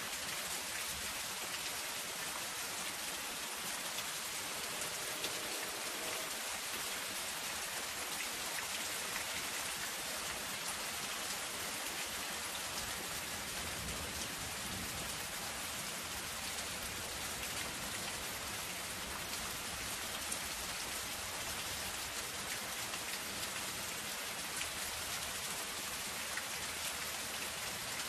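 Soft rain falling steadily on zinc sheeting: a dense, even patter of drops ticking on the metal.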